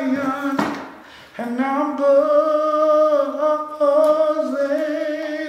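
A man singing unaccompanied, holding long notes that slide smoothly between pitches, with a short break about a second in before the voice comes back.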